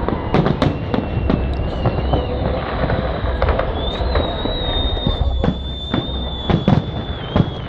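Fireworks going off: a dense run of sharp bangs and crackles. A high, slightly wavering tone is held above them for the last few seconds.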